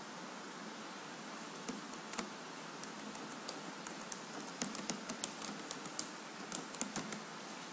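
Computer keyboard typing: irregular key clicks over a steady background hiss, coming faster in the second half.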